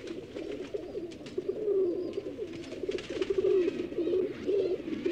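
Several domestic pigeons cooing together in overlapping, wavering low calls, with faint scattered clicks.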